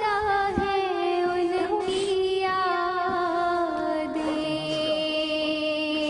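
A single voice singing a naat, drawn out as one long note that slides slowly down in pitch and then holds steady.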